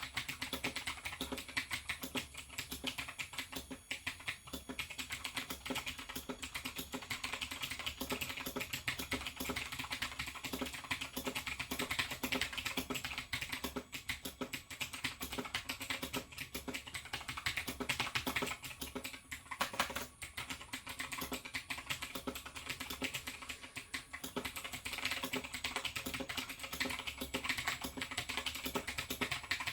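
Continuous fast typing on a Razer BlackWidow X Chroma mechanical keyboard with Razer Green clicky switches and ABS keycaps: a dense, unbroken stream of sharp key clicks and clacks, with a few louder single keystrokes about two-thirds of the way through.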